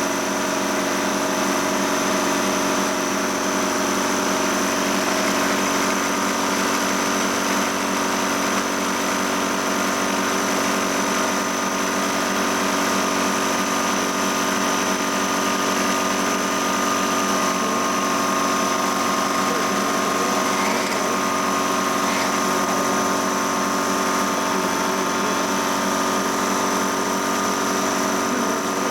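A steady machine hum with several fixed tones over a hiss, unchanging throughout.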